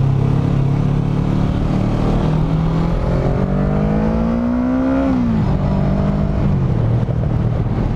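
Kawasaki Z650's parallel-twin engine through a de-catted LeoVince One Evo exhaust, running at low revs on a slow downhill ride, with wind rush on the microphone. The revs climb steadily for a couple of seconds, then fall quickly about five seconds in and settle back to a steady low drone.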